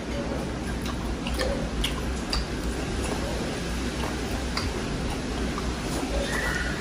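Close-miked eating sounds: chewing and small wet mouth clicks and smacks as rice and beef are eaten by hand, scattered irregularly over a steady low background rumble.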